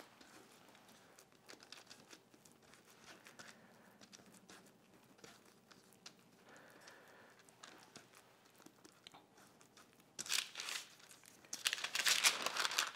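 Faint soft handling of wet dough on parchment paper, then from about ten seconds in, loud crinkling and rustling of parchment paper as it is lifted to roll the dough log.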